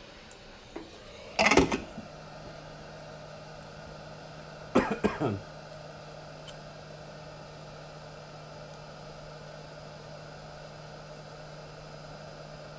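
A man clears his throat twice, about a second and a half in and again around five seconds, over a steady low hum.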